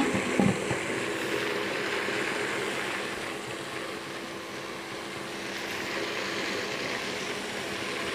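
A glass pot lid is set down on a pot with a short clatter at the start. After that, chicken curry sizzles and bubbles steadily under the lid, over a faint steady hum.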